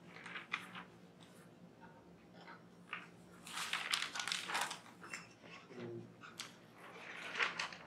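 Sheets of paper rustling and crinkling as they are handled close to a handheld microphone, in short crackly bursts that are densest around the middle and again near the end.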